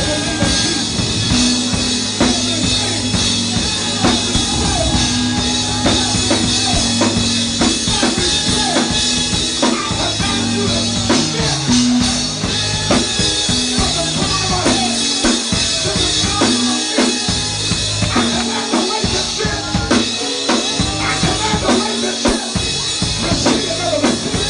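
Live music with a full drum kit, kick drum and snare keeping a steady beat under bass and other instruments.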